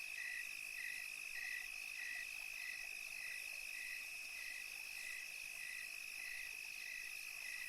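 Night-time cricket chirping: one steady, unbroken high trill, with a slightly lower short call repeating evenly, a little under twice a second.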